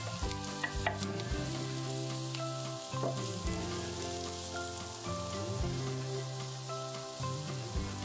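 Food sizzling as it fries in oil in a pan, with a utensil stirring and clicking against the pan a few times near the start. Steady held tones of soft background music run underneath.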